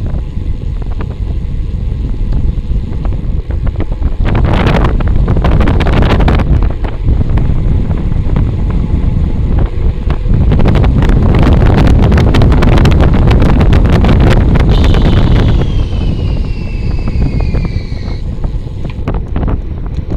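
Wind buffeting the microphone of a moving bicycle, mixed with road noise, loudest through the middle. Near the end a high, thin whine glides steadily downward for about three seconds, then stops.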